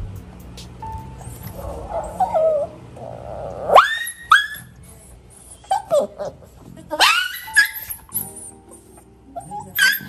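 Shih Tzu bitch in labour yelping, sharp rising cries in pairs about four seconds in, about seven seconds in and again near the end, as a puppy is being delivered.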